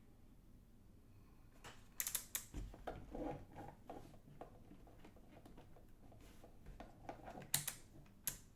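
Scattered plastic clicks and taps from handling an Extech MN47 handheld digital multimeter and its test leads, in short clusters about two to three seconds in and again near the end.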